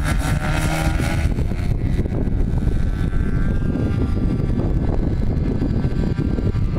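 Quarter-scale Cessna 182 model's 30cc DLE two-stroke petrol engine at full throttle through takeoff and climb-out, its tone growing fainter in the second half as the plane climbs away. Heavy wind rumble on the microphone runs underneath.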